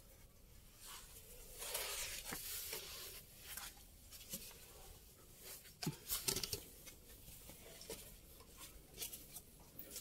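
Scuffing, scraping and rustling of people crawling and moving over a rocky, dusty cave floor. There is a stretch of heavier scraping about two seconds in and a few sharper knocks around six seconds in.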